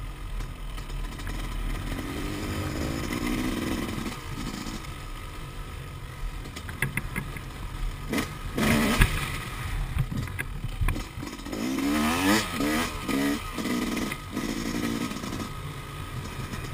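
Yamaha YZ250 two-stroke dirt bike engine running as the bike is ridden, with the revs rising and falling several times about three quarters of the way through. Clattering knocks about halfway through as the bike goes over rough, rocky ground.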